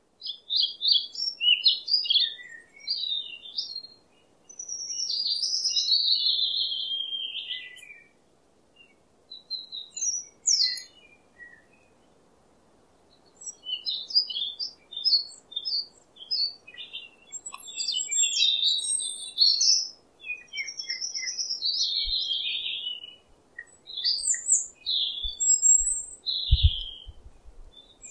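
Small birds chirping and twittering in quick high calls and trills, broken by a couple of short pauses.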